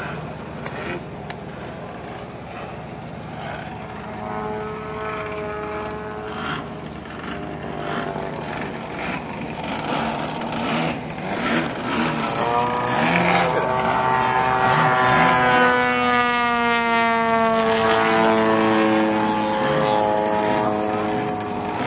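Radio-controlled model airplane engine whining as the plane flies low past. It gets louder through the second half and drops in pitch as it goes by.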